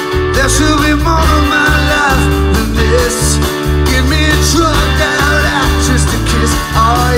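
Live rock band playing through a PA: electric guitars, bass and drums, between sung lines.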